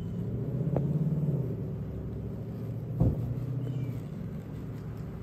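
Road traffic running past: a vehicle's engine hum and tyre rumble that swells in the first second and a half and then eases off, with one sharp thump about three seconds in.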